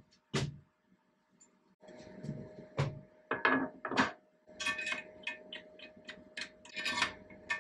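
Irregular clicks and knocks of parts being handled and fitted on an Elegoo Saturn 3 Ultra resin 3D printer, as fittings are tightened down. A faint steady hum starts about two seconds in.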